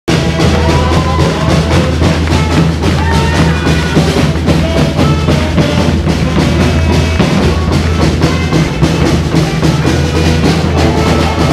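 Music with a strong drum beat and a heavy, steady bass, cutting in suddenly from silence.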